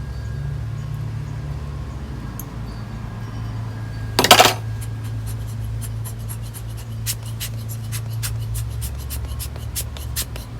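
Hands working on a potted succulent arrangement: a brief loud crackling rustle about four seconds in, then a run of small sharp clicks and taps, over a steady low hum.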